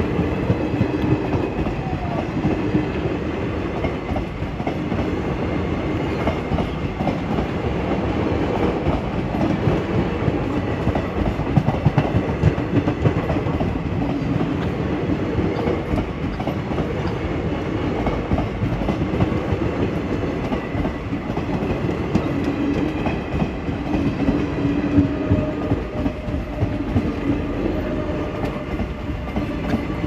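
Indian Railways express passenger coaches passing at high speed close by: a steady rumble of steel wheels on the track, with the clatter of the wheels running over the rail joints.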